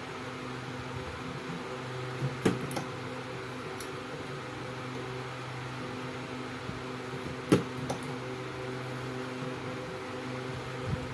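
A steady electrical hum, with a sharp click about two and a half seconds in and another about seven and a half seconds in, each followed by a few smaller clicks.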